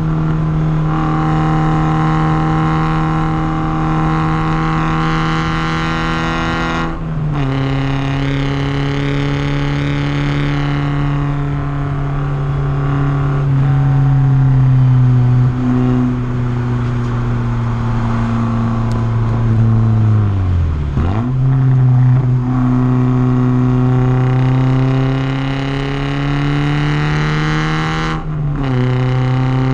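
Porsche 944's four-cylinder engine running hard under load. It makes two upshifts, one about a quarter of the way in and one near the end, each a brief break followed by a step down in pitch. Through the middle the pitch slowly sags, then dips sharply and recovers about two-thirds through.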